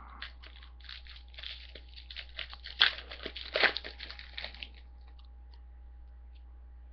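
A trading-card pack's wrapper being torn open and crinkled, a run of crackles and rips for about four and a half seconds, then a few faint clicks.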